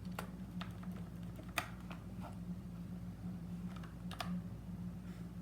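Keys of a mechanical keyboard being pressed: a handful of separate, irregularly spaced clicks, a couple of them close together.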